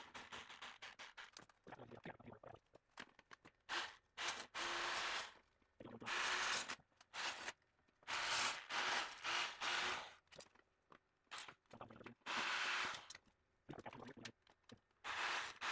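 Electric sheet-metal shear cutting steel sheet, run in short bursts of half a second to a second with pauses between. A run of faint clicks comes before the first cut, which starts about four seconds in.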